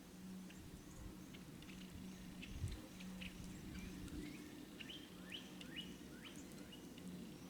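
Small wild birds chirping: many short, high chips, with a quicker run of sharper sweeping calls between about five and six and a half seconds in. A faint low hum sits underneath, and there is a single dull thump about two and a half seconds in.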